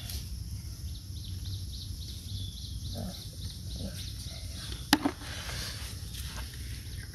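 Outdoor ambience with a steady low rumble of wind on the microphone and faint high chirping. About five seconds in comes a sharp click, with a smaller one just after: a snail shell dropped into a plastic bucket.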